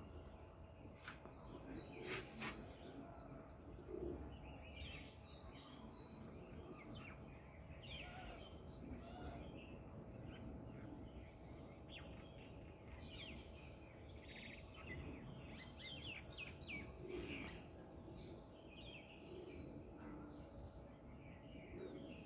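Small birds chirping and twittering, many short quick notes overlapping one another, over a faint low background rumble. A few sharp clicks about one and two seconds in.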